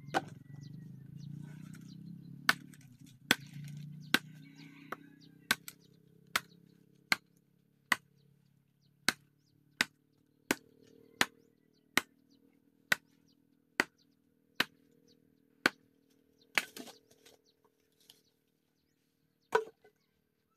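Bolo knife (itak) chopping dry, dead wood: a steady series of sharp chops about one a second, stopping a few seconds before the end, followed by a couple of wooden knocks near the end.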